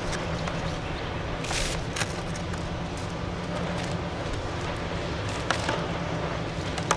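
PEX tubing and its blue plastic sleeve being pushed and pulled into place, giving a few short plastic clicks and scrapes about one and a half, two and five and a half seconds in and again at the very end, over a steady low rumble.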